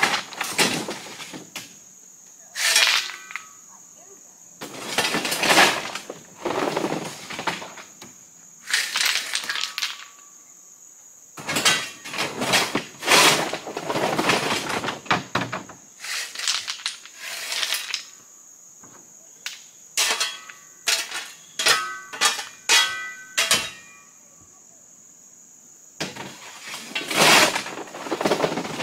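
Loose rock clattering and scraping as it is raked and dumped out of a pickup truck's bed, in irregular bursts of rattling with short pauses between, a few strikes leaving a brief ring.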